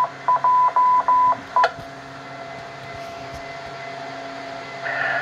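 Ham radio repeater tones through an Icom ID-5100 transceiver's speaker: a string of short and long beeps at one steady pitch, Morse-code fashion, typical of the repeater identifying itself. They end with a click about a second and a half in, followed by a steady hiss with a low hum from the open channel.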